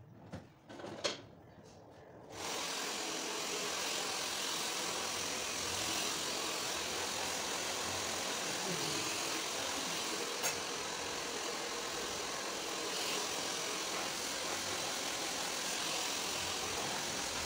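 Handheld hair dryer blowing steadily, switched on about two seconds in after a few light clicks, with one sharp click partway through.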